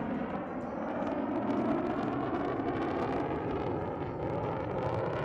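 Jet aircraft engines running with a steady rumble.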